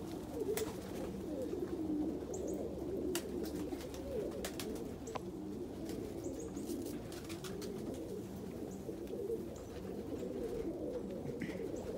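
A flock of domestic pigeons cooing continuously in low, overlapping calls, with a few sharp clicks scattered through.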